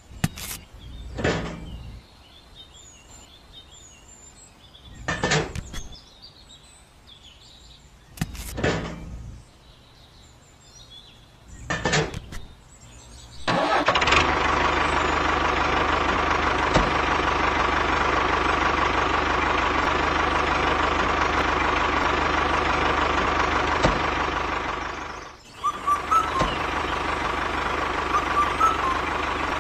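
A few short sharp knocks and clicks over faint bird chirps, then about halfway through a small motor starts running loudly and steadily as the toy tractor drives. Near the end the sound drops out briefly, then the motor runs on.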